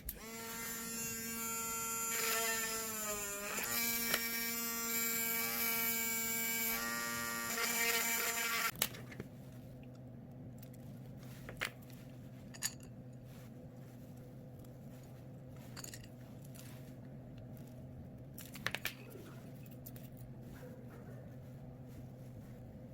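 Small electric hand drill whining steadily for about nine seconds, its pitch dipping briefly as it bites into the cured resin pendant, then switched off. A low steady hum with a few light clicks follows.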